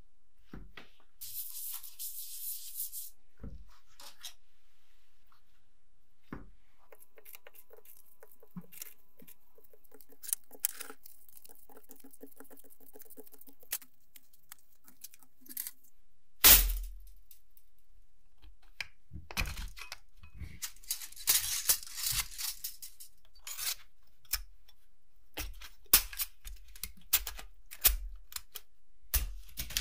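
Thin steel transformer lamination plates clinking and rustling as they are handled and laid out, with a single loud knock about halfway through. Toward the end come rapid light clicks as the plates are slotted back into the transformer coil.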